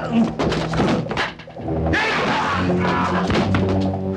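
Dramatic film score with sustained low held notes under the sound effects of a fistfight, with a run of punch and thud hits in the first second or so.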